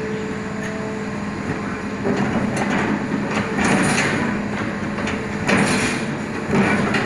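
Hitachi excavator working: a steady engine hum, overlaid from about two seconds in by louder, rough surges of mechanical noise that peak several times.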